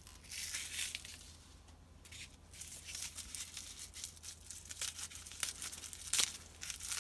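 Bubble wrap and tape crinkling and tearing as a small wrapped bundle is unwrapped by hand: a run of crackles and clicks with a brief lull about two seconds in.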